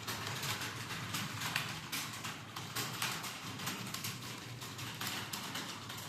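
Computer keyboard being typed on quickly: a fast, uneven run of key clicks, several a second, over a low steady hum.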